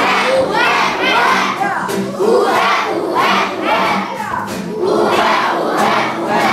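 Several voices shouting and calling out at once, loud and overlapping, with no words that can be made out.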